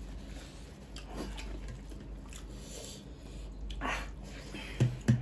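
Close-miked eating of mutton curry and rice by hand: chewing and squishing of food, with a few short, sharp breaths through the nose. Two short, loud low thumps come near the end.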